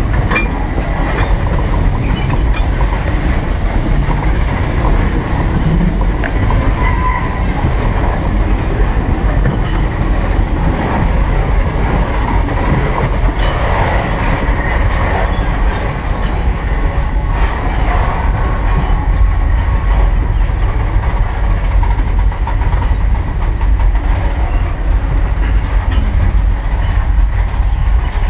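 A train running along the track behind a 1915 Baldwin steam locomotive: a steady, unbroken rumble that is heaviest in the bass.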